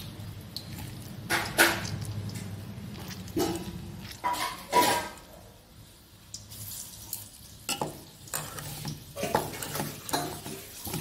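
Hands squeezing and shaping a moist cabbage-and-carrot mixture in a steel bowl, with scattered clinks and knocks of steel bowls, over a low steady sizzle of balls deep-frying in oil.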